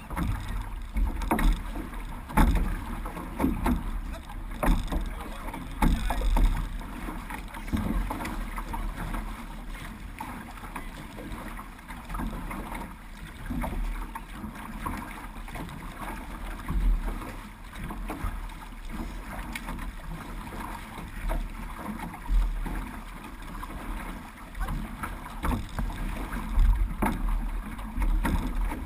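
Paddlers in a six-person outrigger canoe stroking through the water: repeated splashes of paddle blades entering and pulling through the water, over a low rumble of wind on the microphone.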